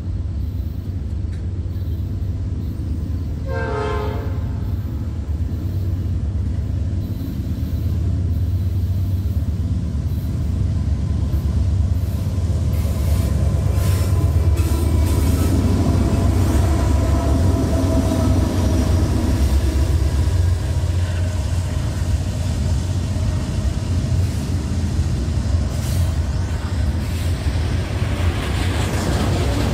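Freight trains passing close by, with a steady low rumble of steel wheels on rail. About four seconds in comes one short train horn blast. From about twelve seconds a Norfolk Southern diesel locomotive leading a double-stack train passes on the near track, and the sound grows louder, with a steady metallic ringing over the rumble.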